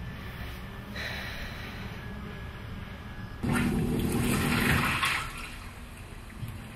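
Top-loading washing machine churning water and clothes in its drum: a low, quiet background gives way about halfway through to a sudden louder stretch of sloshing water with a motor hum, which then eases off.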